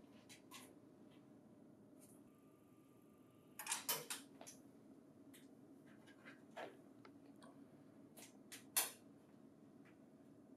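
Faint clicks and light taps of a metal locking bracket and its knurled thumbscrew being handled and turned by hand, with a cluster of louder clicks about four seconds in and a single sharp click near nine seconds.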